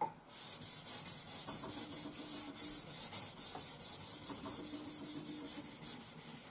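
A scandi-ground puukko blade stroked quickly back and forth on a wetted, worn abrasive belt: an even run of short rasping hiss, several strokes a second.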